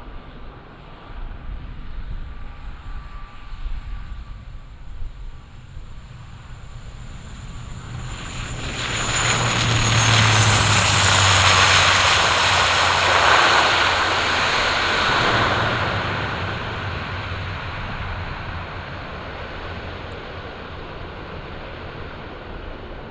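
Bombardier Dash 8 Q400 twin-turboprop landing and rolling past along the runway. Its Pratt & Whitney PW150 engines and six-blade propellers grow louder about eight seconds in, with a steady low propeller drone, and are loudest for several seconds as it passes. The sound then fades slowly as the aircraft rolls away.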